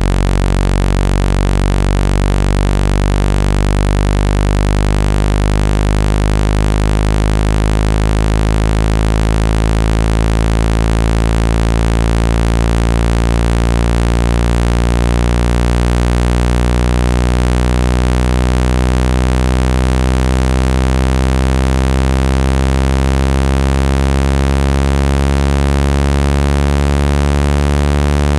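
Electronically generated speaker-cleaning tone meant to shake water out of a phone speaker: a loud, steady low buzz with many overtones, its pitch rising slowly, over a steady hiss.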